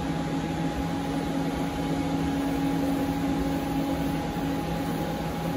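Mori Seiki ZT 1000Y CNC lathe running with a steady hum, and an added servo tone as the turret is jogged along its axis with the handwheel. The tone stops about four and a half seconds in.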